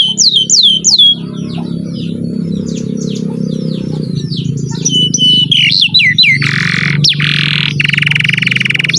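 Domestic canary singing. It opens with a few loud descending whistled notes, then runs into softer varied chirps and trills, and from about two-thirds of the way in it gives rapid buzzy rolls. A steady low hum lies underneath.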